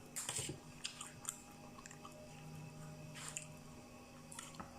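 A person chewing and biting mixed seafood salad close to the microphone: a string of short, wet mouth noises, busiest in the first second and a half and again after about three seconds, over a faint steady hum.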